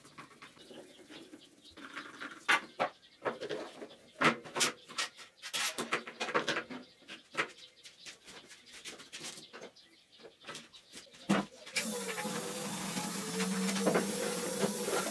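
Irregular clicks and knocks of hand work, then about twelve seconds in a steady motor starts running with a hum.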